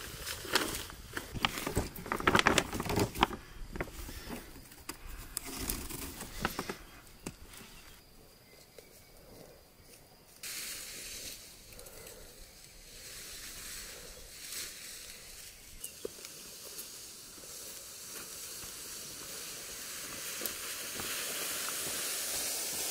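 Plastic sheeting crinkling and crackling irregularly as a rope is pulled and tied around a shelter's cover. About ten seconds in this gives way abruptly to a steady hiss that slowly grows louder toward the end.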